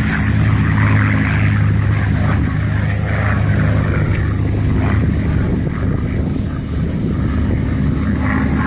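Supermarine Spitfire's piston engine giving a steady drone as the fighter flies by at a distance.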